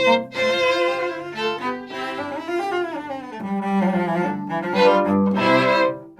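String orchestra of violins, cellos and double bass playing a piece live, with quickly moving bowed lines.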